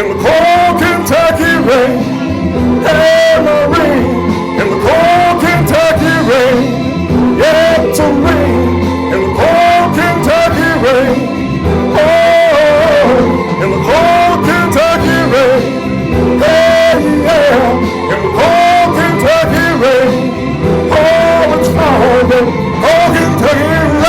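Music: the instrumental close of a country-pop backing track, a short curling lead line repeating about once a second over drums and bass.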